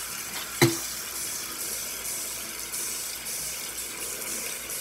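Bathroom sink tap running steadily into the basin, with one sharp knock about half a second in.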